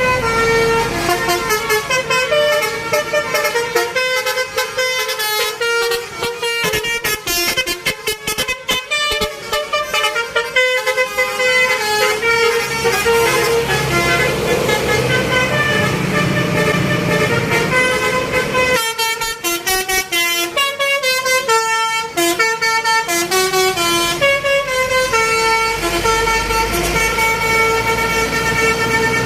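Indonesian 'telolet' bus horn, a Basuri multi-tone musical horn, playing a long run of tunes. It goes from rapid fluttering notes in the first half to longer held chords, with a short stepped melody between them.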